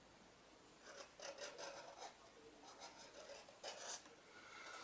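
Red felt-tip pen rubbing over a cardboard toilet-roll tube in faint, repeated colouring strokes.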